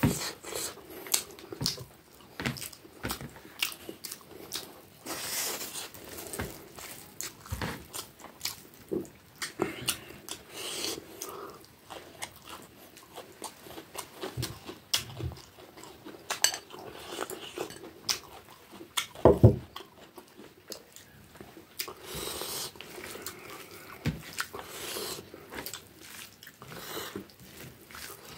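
Close-miked eating sounds: a person chewing mouthfuls of rice and side dishes eaten by hand, with wet smacks and short crunches. Their fingers mix the food on the plate. One louder thump comes about two-thirds of the way in.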